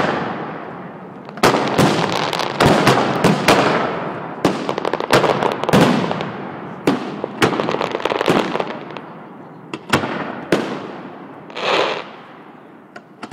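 Aerial fireworks shells bursting overhead in a steady barrage: about ten sharp bangs, each trailing off in a rumbling echo. A brief rushing sound comes near the end as another shell goes up on its trail.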